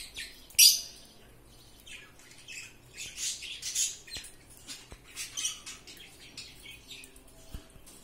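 Cockatiels giving short, harsh, rasping squawks: one loud burst about half a second in, then a run of them around three to four seconds and scattered smaller ones after.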